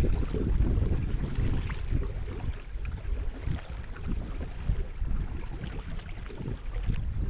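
River water splashing and gurgling against a kayak's hull close to the waterline as it moves through a riffle, over a steady low rumble.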